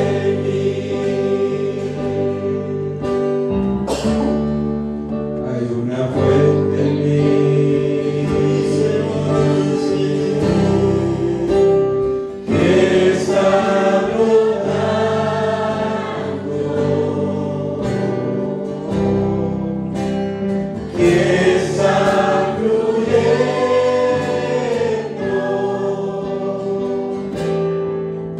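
A choir sings a Spanish-language Christian worship song over sustained accompaniment, in continuous phrases.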